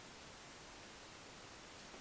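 Near silence: a steady, even hiss of background noise.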